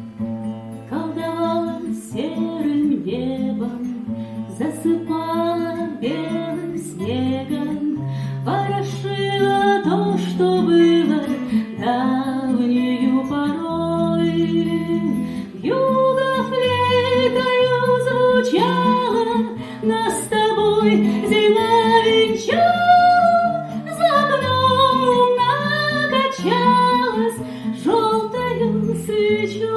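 Acoustic guitar accompaniment with a woman singing a melody that is held and sliding, with no clear words, over the guitar's low plucked bass notes.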